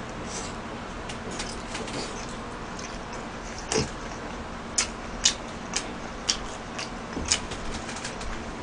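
Close-miked eating sounds of a man chewing a mouthful of rice, with wet mouth smacks starting a little under four seconds in and then coming about twice a second.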